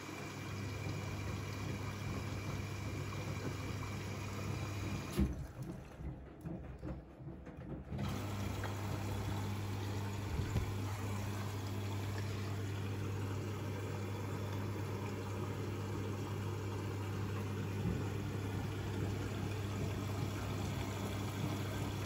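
Siemens iQ300 front-loading washing machine filling and tumbling a load: water running and sloshing in the drum over a steady motor hum. The hum and water noise stop for about three seconds about five seconds in, then start again.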